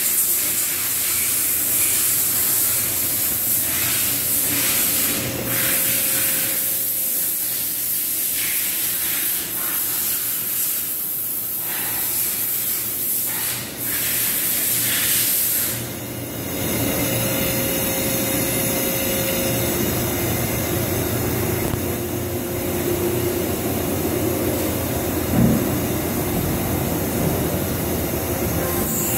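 Doosan HP 4000 II horizontal machining center running, a steady hiss over a hum. About 16 seconds in, the hiss eases and a lower hum with a couple of steady tones takes over. There is one short knock a few seconds before the end.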